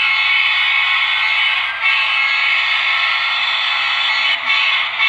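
The sound decoder of an HO scale Walthers SD70ACe model locomotive plays a multi-chime diesel air horn through its small speaker: two long blasts, then a short one near the end. A low engine hum runs underneath.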